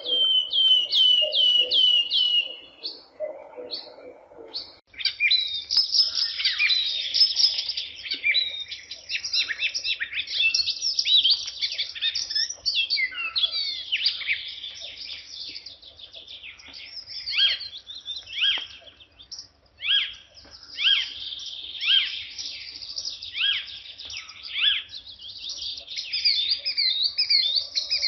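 Birds chirping. It opens with a quick run of repeated falling chirps, then turns into a dense tangle of overlapping chirps and trills, and thins later to separate chirps about one a second.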